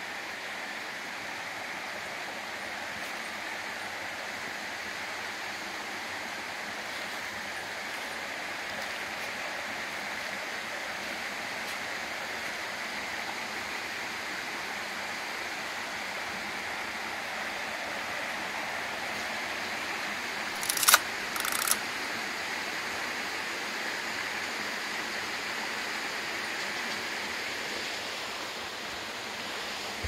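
Steady even hiss with no distinct voice or call, and two sharp clicks about half a second apart roughly two-thirds of the way in.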